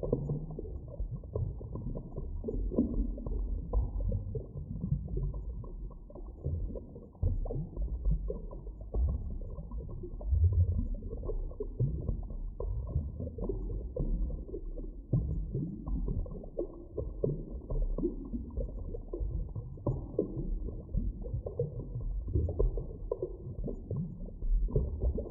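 Deep underwater ambience: a steady, muffled low rumble with irregular gurgling swells, all of it dull and bass-heavy, with nothing bright or hissing on top.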